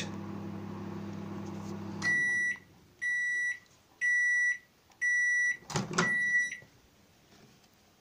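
Microwave oven running with a steady hum, its newly replaced turntable motor making no noise of its own. It shuts off about two seconds in and beeps five times, about once a second, at the end of the timer. The door latch clunks open during the last beep.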